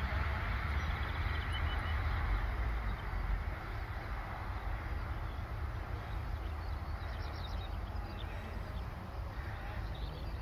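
Outdoor ambience: a steady low rumble, like wind on the microphone, over an even hiss, easing slightly after about three seconds. A few faint bird chirps sound twice.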